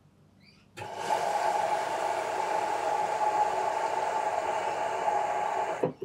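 Front-load washing machine filling: the water inlet valve snaps open, water rushes steadily into the machine for about five seconds, then the valve shuts off suddenly.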